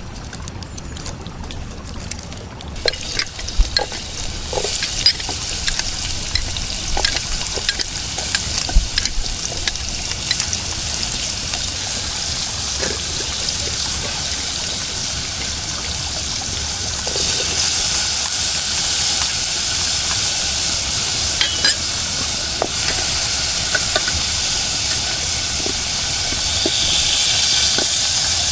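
Food sizzling as it fries in a pan over a campfire, with scattered pops and ticks through the hiss. The sizzle starts a few seconds in and grows louder a little past halfway.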